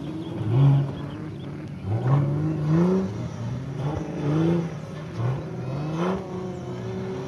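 Engine of an off-road competition 4x4 race car revving in repeated short bursts, its pitch climbing with each push, about five times, while it works over muddy mounds. Between the bursts it runs at a lower steady pitch.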